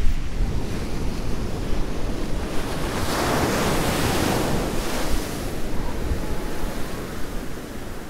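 Ocean surf: a wave breaks and washes in, its hiss swelling about three seconds in and fading by about five seconds, with wind buffeting the microphone.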